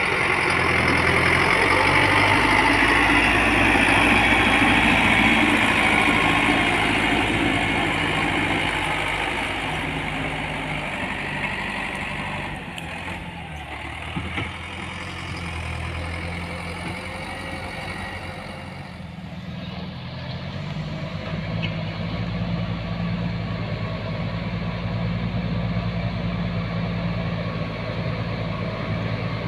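Heavy diesel engine of road-works machinery running: louder with added mechanical noise over the first several seconds, easing off around the middle, then running steadily again.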